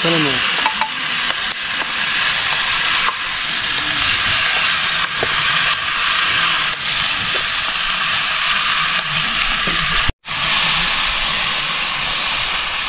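Food sizzling in hot oil in a metal wok over a wood fire, stirred with a ladle: a steady, loud hiss with a few faint clicks. The sound cuts out for a split second about ten seconds in.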